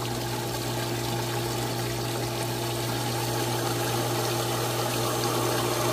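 Vevor half-horsepower 230-volt submersible well pump running, with a steady hum and the rush of water through the discharge pipe, growing slightly louder as a ball valve is slowly closed. The pump is being throttled to build pressure, its flow dropping from about 25 to 20 gallons per minute.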